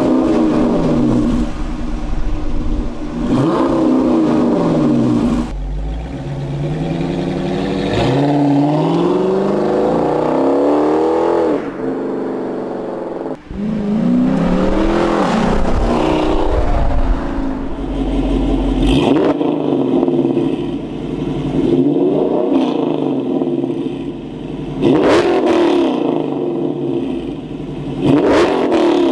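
Dodge Challenger R/T's 5.7-litre HEMI V8 exhaust being revved up and down again and again, first on the stock exhaust manifolds and then with long-tube headers fitted. A few sharp cracks come through in the later revs.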